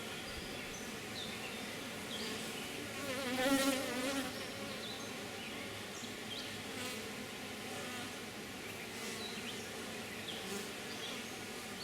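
Honey bees buzzing around an open hive: a steady, even hum from a calm colony. About three seconds in, one bee flies close by and its buzz briefly swells louder and wavers in pitch before fading back into the hum.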